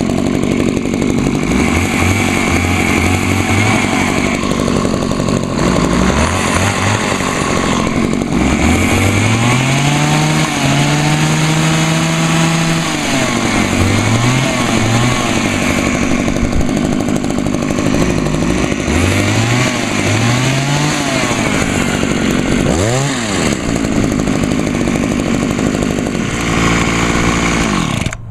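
Two two-stroke hedge trimmer engines, one a Homelite, running together while one is revved again and again, its pitch rising and falling. Near the end the engine sound drops off suddenly as the revved trimmer bogs when given throttle, which the owner takes as a sign that its carburetor needs adjusting, the L (low-speed) screw turned out a little.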